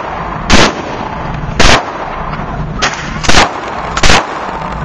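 Gunfire at a shooting range: four loud gunshots at uneven gaps of roughly a second, with a fainter shot between the second and third, over a steady background hiss.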